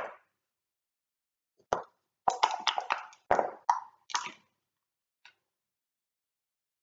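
A backgammon checker clicked down on the board, then dice clattering across the board in a quick run of knocks for about two seconds before settling.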